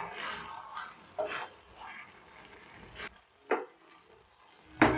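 Wooden spatula stirring and lifting saucy spaghetti in a frying pan: soft wet smears, a few short scrapes or taps, and a quick run of sharp taps near the end.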